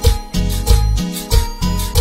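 Instrumental band music from a drum kit and electronic keyboards: an upbeat dance rhythm with a steady bass pulse and cymbal hits, about three beats a second, under sustained keyboard notes.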